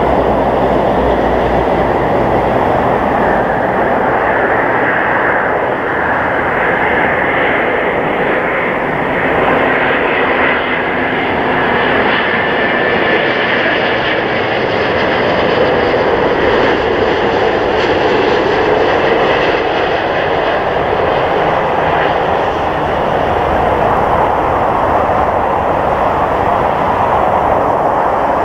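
Airbus A350-900's Rolls-Royce Trent XWB turbofan engines on final approach: a loud, steady jet-engine rumble. A high fan whine comes up in the middle as the airliner passes close overhead with its gear down.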